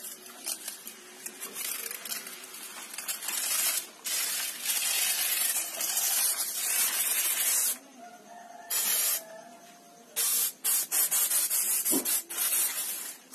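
Hand trigger sprayer on a plastic bottle spraying pesticide: repeated hissing sprays, short at first and then longer held sprays from about four seconds in, turning choppy near the end as the bottle runs out of liquid.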